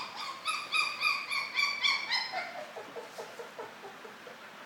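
Labradoodle puppy whining in a quick run of short, high-pitched cries, about four or five a second, trailing off about two seconds in into fainter, lower whimpers.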